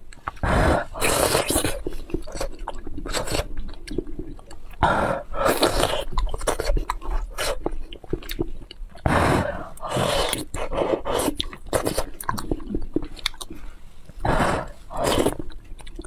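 Close-miked chewing and biting: wet mouth clicks and smacks in irregular clusters, broken by a few louder bursts of mouth noise about a second long.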